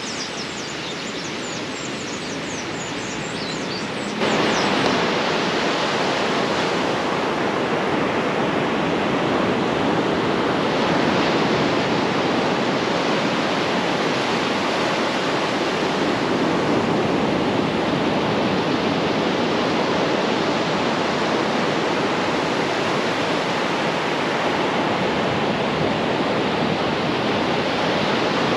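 Sea surf breaking on a beach: a steady noisy wash that swells and eases slowly. For the first four seconds there is a quieter outdoor background with birds chirping, then it cuts suddenly to the louder surf.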